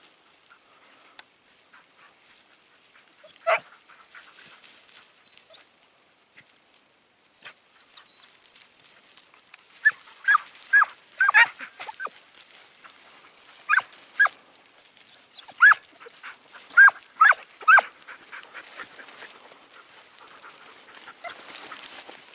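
Segugio italiano hounds giving tongue with short, high yelps while working a hare's scent: a single yelp a few seconds in, then a run of about a dozen between roughly 10 and 18 seconds in. Faint rustling of the dogs moving through the stubble underneath.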